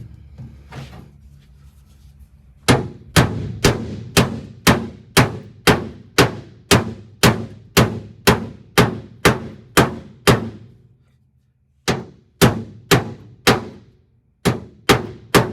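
Hammer tapping a sheet-steel floor pan down flush, steady strikes about two a second, each with a short metallic ring; the strikes break off briefly and then resume near the end.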